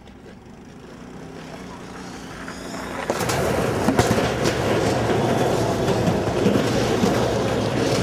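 A towing motor getting steadily louder as a rider on a board is pulled across ice, then a loud continuous rumble from about three seconds in. Clattering knocks about four seconds in as he crashes through trash cans.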